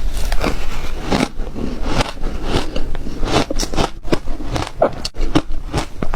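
Close-up biting and chewing of crunchy ice: a rapid, irregular run of loud crunches and crackles as the ice cracks between the teeth.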